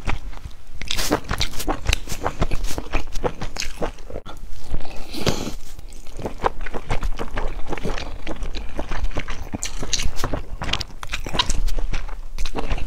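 Close-miked chewing and biting of soft stuffed steamed buns, a dense, irregular run of wet mouth clicks.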